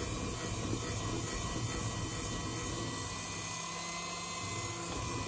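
Electric hand mixer running steadily, its wire beaters whisking a thick cake batter in a glass bowl until no flour lumps remain.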